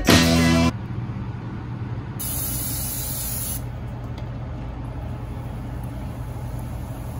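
Intro music cuts off under a second in, leaving a steady low hum. From about two to three and a half seconds in comes a short hiss of cooking spray onto an open waffle iron.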